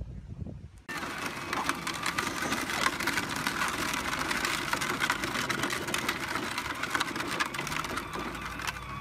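A battery-powered ride-on toy jeep driving: its small electric motor and gears whine steadily while the hard plastic wheels crackle over gravel, starting suddenly about a second in. Before that, brief wind rumble on the microphone.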